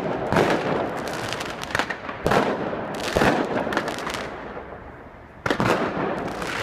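Fireworks going off all around: a dense run of sharp bangs and crackles from many charges at once. They thin out for about a second, then loud bangs start again near the end.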